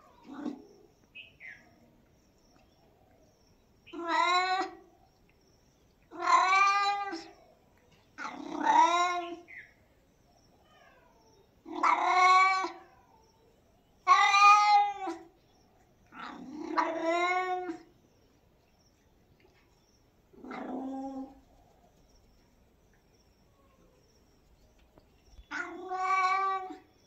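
Tabby domestic cat meowing repeatedly: about eight long meows a couple of seconds apart, each rising then falling in pitch, with a pause of a few seconds before the last one.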